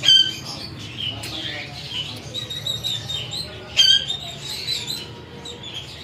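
Parrots squawking: two loud, sharp squawks, one at the start and one about four seconds in, with softer chirps and whistles between.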